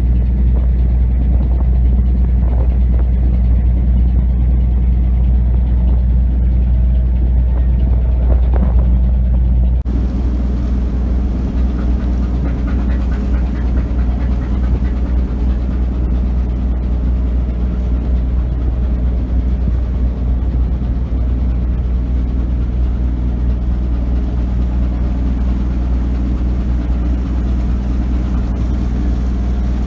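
A longline fishing boat's engine droning steadily, with a low, even hum and some wind and water noise; the background hiss changes abruptly about ten seconds in.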